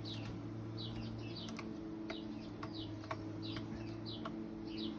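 Small garden birds chirping: short, high, downward-slurred chirps repeated every half second or so, over a steady low hum.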